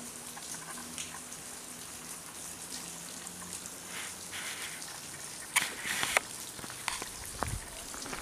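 Water dripping from a rock overhang, scattered drops over a steady hiss, with a few sharper knocks a little past halfway.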